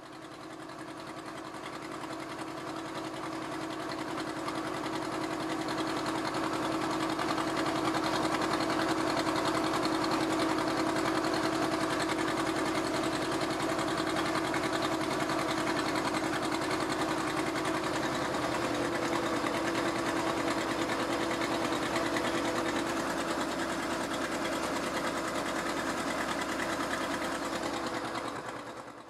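An engine running steadily with a fast, even pulse. It fades in over the first few seconds, shifts slightly in its low end about two-thirds of the way through, and cuts off at the very end.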